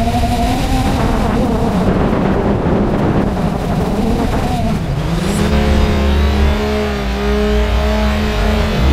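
Quadcopter drone's propellers whining, the pitch sliding up and down as the drone manoeuvres. From about five seconds in, a steadier, deeper tone with a strong low rumble takes over.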